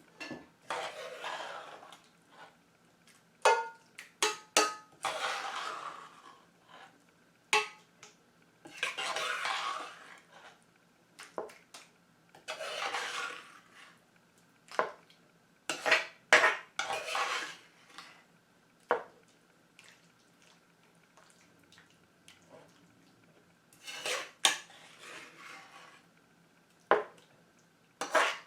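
Utensils scraping and clinking against dishes and pans while food is mixed and spooned out. Roughly one-second scraping strokes alternate with sharp single clinks at irregular intervals.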